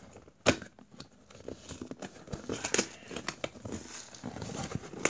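Stiff cardboard shipping box being prised open by hand: its flaps scrape and crackle against each other in short bursts, with one sharp snap about half a second in.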